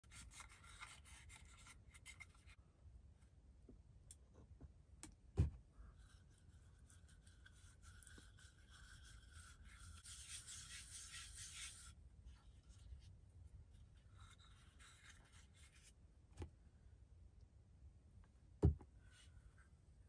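Wooden candle-holder pieces handled and rubbed against each other and the table, with stretches of faint scratchy rubbing and a few sharp wooden knocks, the loudest near the end.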